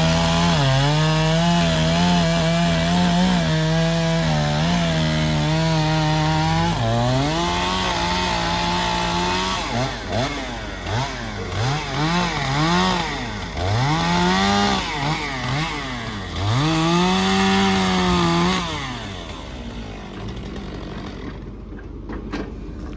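Chainsaw engine running at a steady high speed, then revved up and down about five times, and dropping away to a quieter level near the end.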